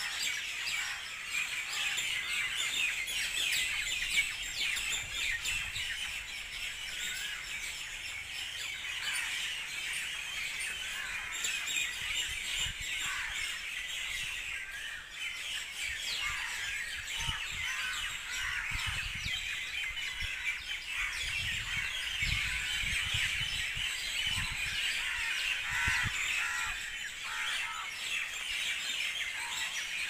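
Predawn chorus of a mixed flock of birds roosting in a large tree: a dense, unbroken mass of overlapping chirps and calls.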